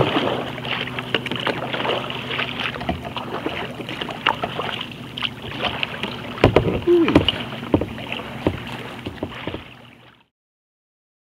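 Water splashing and slapping against the hull of a WS Tsunami 165 sea kayak as it is paddled through choppy motorboat-wake chop, with short irregular splashes and a louder cluster about six and a half to seven and a half seconds in. The sound cuts off to silence about ten seconds in.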